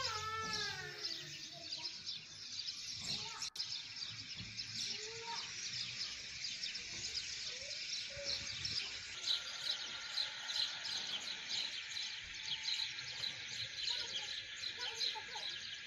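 Many small birds chirping rapidly and continuously over a steady hiss, with a few longer curving calls.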